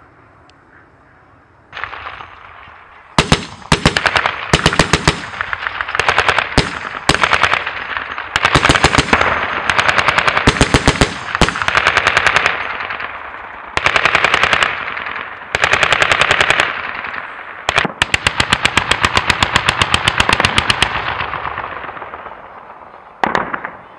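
Heavy machine gun mounted on a pickup truck firing in repeated bursts of rapid shots, each about one to three seconds long, starting about two seconds in and going on until near the end.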